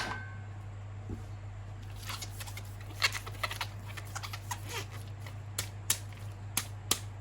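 Scattered light clicks and taps of small objects being handled, irregular and a few per second, over a steady low hum.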